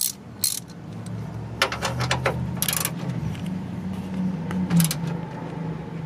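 Hand socket ratchet clicking in several short bursts as a 10 mm radiator fan mounting bolt is turned; a helper thinks the bolt is being tightened rather than loosened. A low steady hum runs underneath.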